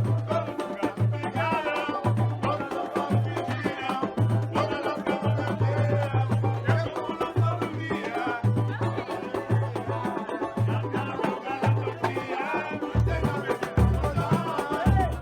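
Samba group playing live: hand percussion keeps a steady beat over a repeating bass line, with a melody above. The bass drops lower a little before the end.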